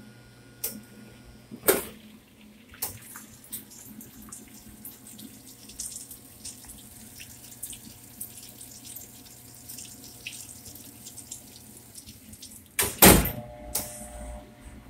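Water running steadily from a hose into a foam-filled stainless steel tank, splashing, with scattered small clicks. Sharp knocks sound about two seconds in, and the loudest comes near the end.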